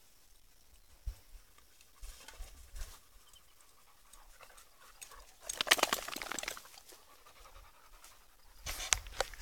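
A dog panting, in a quick run of breaths about halfway through and a shorter run near the end.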